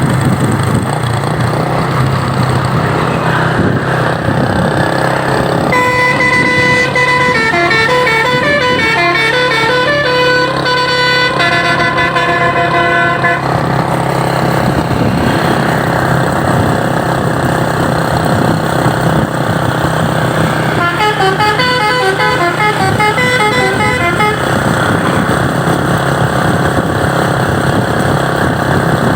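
Truck's basuri telolet horn, a set of musical air horns, playing a stepping melody twice, first a long run and then a shorter one, over the steady noise of the truck's engine and traffic.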